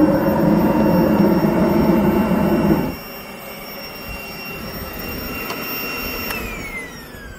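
Homemade forge running with a loud steady rush of flame and air over an electric blower's high whine; the rush drops away abruptly about three seconds in. Near the end the whine falls in pitch and fades as the blower is switched off and spins down.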